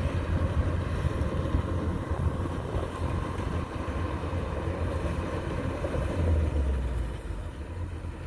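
Kubota DC-105X combine harvester running while cutting standing rice: a steady low engine drone, a little louder about six seconds in and easing slightly soon after.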